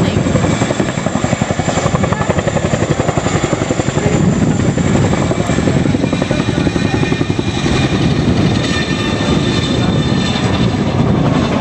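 Boeing CH-47 Chinook tandem-rotor helicopter flying past overhead: its twin rotors make a fast, steady, rhythmic beating blade slap, with a thin steady high whine from the engines above it.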